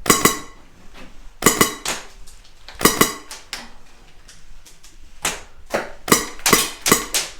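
Airsoft guns firing during an exchange of fire: about a dozen sharp cracks, singly and in quick pairs at irregular gaps, each with a brief ringing tail.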